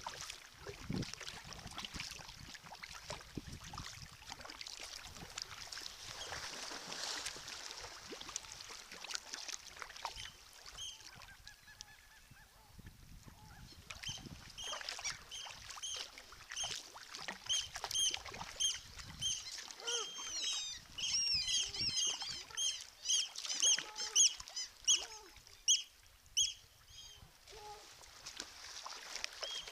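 Kayak paddle strokes splashing in the water, then from about halfway a long run of short, high bird calls repeated several times a second, louder than the splashing.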